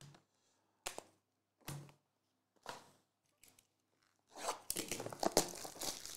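A few light clicks, then from about four seconds in, plastic shrink wrap being slit and torn off a trading card box, crackling and crinkling.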